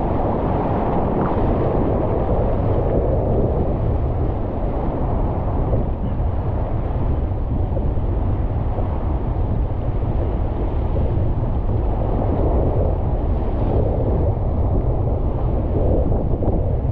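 Whitewater rapids rushing around a kayak, heard from on board: a steady, dull rush of water with a heavy low rumble.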